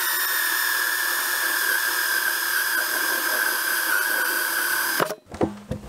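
Craftsman cordless drill turning a 1¾-inch hole saw in reverse through the thick plastic top of a poly barrel: a steady high motor whine that cuts off suddenly about five seconds in.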